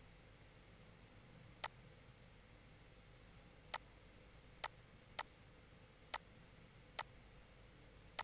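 About seven sharp, single clicks of a computer mouse and keyboard keys at irregular intervals, over a faint steady hum.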